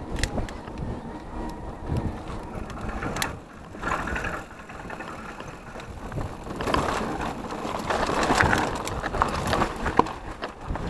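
Mountain bike ridden over a rocky dirt trail, heard from a camera on the handlebars: tyres crunching over gravel and stones, with the frame and parts rattling and knocking at irregular moments. It gets louder and rougher from about six seconds in.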